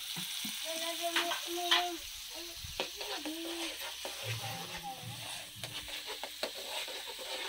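Fish curry sizzling in a pan while a spoon stirs it, the spoon scraping and clicking against the pan now and then.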